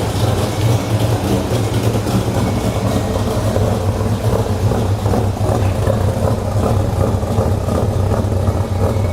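Chevrolet 502 big-block V8 crate engine idling steadily through long-tube headers and a dual exhaust with an X-pipe, with a deep, even rumble. It is still warming up after a cold start.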